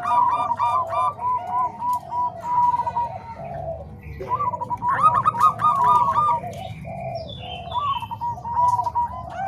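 Zebra doves (perkutut, Bangkok and cemani kolbuntet types) cooing, two or more birds overlapping in rapid runs of short, repeated staccato notes.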